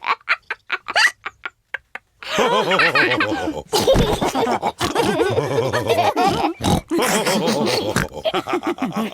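Cartoon pig characters' voices laughing with pig snorts, starting about two seconds in after a run of short clipped voice sounds.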